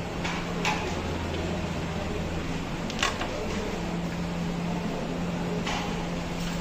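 Short sharp clicks of a carrom striker and coins on a carrom board: a couple of light clicks near the start, the loudest about three seconds in, and another near the end, over a steady low hum.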